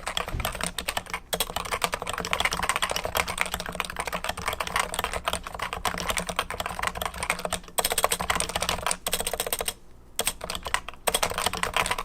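Fast, continuous typing on a Cooler Master Novatouch Topre-switch keyboard with 45 g domes and Topre high-profile keycaps. The keystrokes come as dense clicks, with a short pause about ten seconds in before typing resumes.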